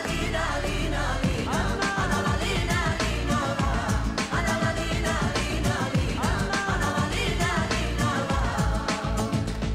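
Arabic-flavoured pop song with singing: a bending, ornamented melody over a steady dance beat.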